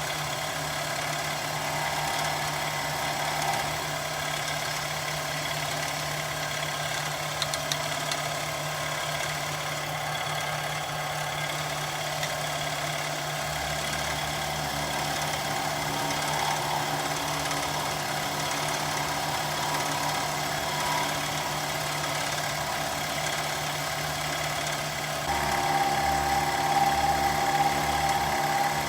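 Milling machine running steadily, cleaning up the cut edge of a metal plate: a constant motor hum with a higher steady whine that grows louder about 25 seconds in.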